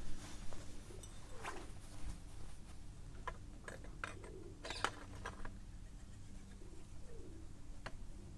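A pigeon cooing softly every few seconds, with a handful of light, sharp clicks and clinks, loudest about four to five seconds in.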